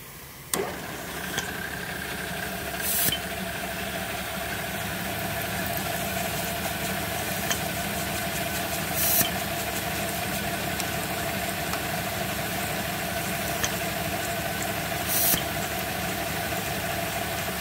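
Drill press motor starting with a click and then running steadily, its twist drill boring into an aluminium block with a Coolubricator JR spraying lubricant at the cutting edge. Three short bursts of hiss come about six seconds apart.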